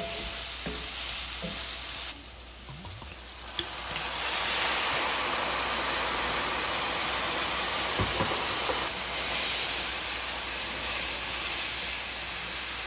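Sliced mushrooms and shallots sizzling in a hot cast-iron skillet, stirred and scraped with a wooden spoon, with small knocks of the spoon on the pan. The sizzle drops away about two seconds in, then returns as a louder, hissier sizzle once Marsala wine is in the pan, its alcohol steaming off as it deglazes.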